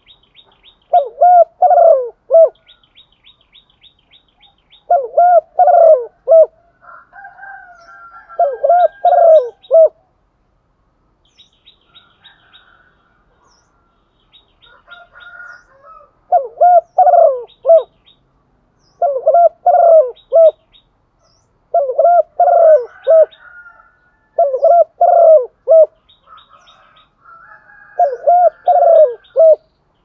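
Spotted dove cooing: about eight loud coo phrases, each about a second and a half long, with gaps of a few seconds between. It is a female spotted dove's call, of the kind played to stir male doves into calling. Faint rapid high chirps from small birds come in between the phrases.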